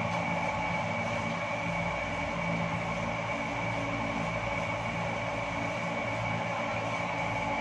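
Steady machine hum with a thin high whine over it, running evenly without a break.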